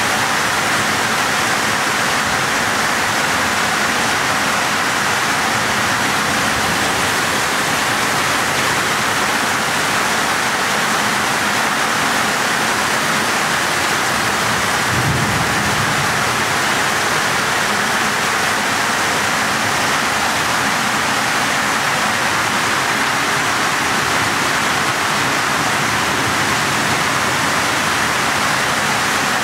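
Heavy rain in a steady, unbroken downpour: a loud, even hiss of rain beating down.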